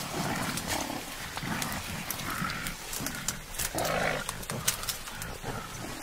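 Mountain gorilla giving short, rough calls over rustling and the sharp snaps and cracks of bamboo stems being pushed through.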